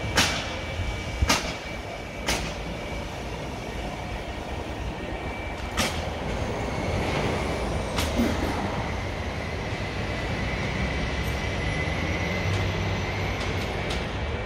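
Construction-site and street noise: a steady low machine noise with a faint high whine, broken by several sharp metallic knocks in the first eight seconds.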